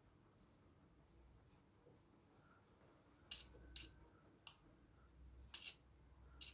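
Faint, short scratchy strokes of a comb being drawn through the synthetic fibres of a short wig, about five of them in the second half, a little under a second apart.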